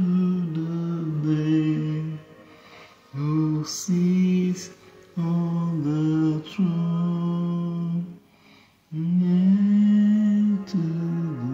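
A man singing a slow worship song solo. He holds long notes in four phrases with short pauses between them.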